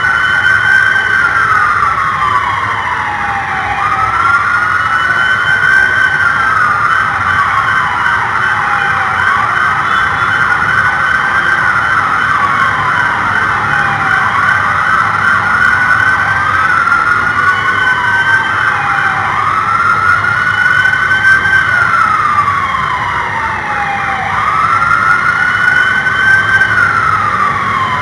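Police car siren sounding a slow wail: each cycle rises quickly and then falls off over about four seconds, repeating about every five seconds. A second sweep trails just behind each one over a steady higher tone.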